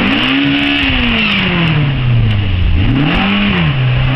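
Peugeot 205 rally car's engine revving hard with the car stuck off the road on the grass and gravel verge. The pitch peaks just after the start and sags slowly, then comes a second, shorter rev about three seconds in, as the driver works to get the car back onto the road.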